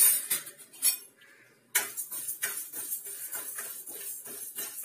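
A few sharp metal clinks, then from about two seconds in a metal spoon stirring and scraping split moong dal around a metal kadai in quick, repeated strokes as the dal is lightly dry-roasted.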